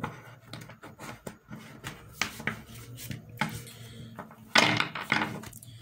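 A tarot deck being shuffled by hand: cards sliding and tapping against each other in quick, irregular clicks and rustles, with one louder, longer rustle about four and a half seconds in.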